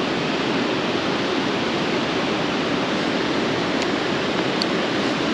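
Steady rush of flowing creek water, an even unbroken noise.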